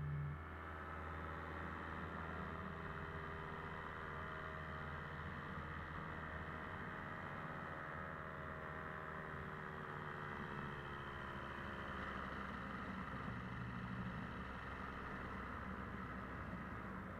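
Paramotor engine running steadily, its pitch sagging slightly about ten seconds in.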